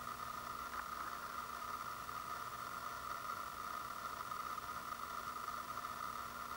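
Steady background hiss with a faint low hum: room tone and recording noise, with a faint tick or two about a second in.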